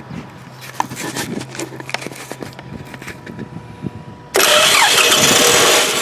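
Light knocks on a Toyota Camry's starter motor, then a little past four seconds in the starter suddenly engages and the four-cylinder engine cranks and starts running. A starter that works only after tapping is typical of worn contacts in the starter solenoid.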